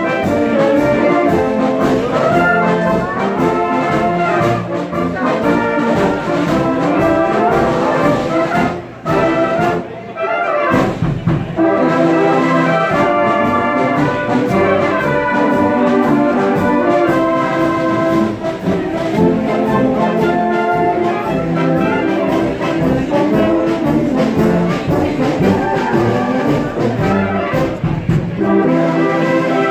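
Brass music, trumpets and trombones playing a melody, with a brief break about nine seconds in.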